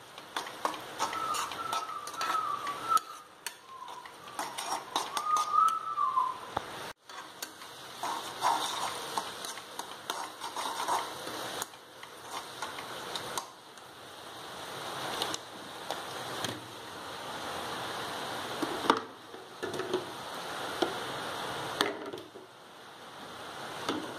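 Onions and tomatoes sizzling in a non-stick kadai while a spatula stirs and scrapes them, with frequent clicks of the spatula against the pan.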